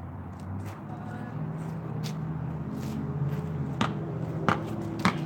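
Basketball bouncing on concrete, a few sharp thuds with the three loudest near the end about two-thirds of a second apart, over a steady low hum.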